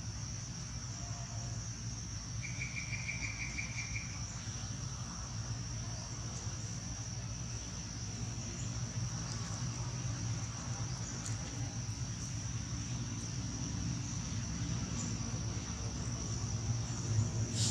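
Steady high-pitched drone of insects, with a brief rapid trill about three seconds in, over a low steady rumble.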